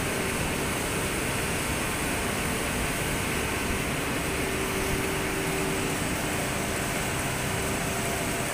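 Steady background noise of a factory hall: an even hiss with a faint steady hum running under it.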